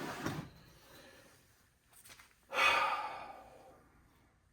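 A man's long, breathy sigh about two and a half seconds in, fading over about a second, after a shorter breath at the start; a couple of faint clicks come just before the sigh.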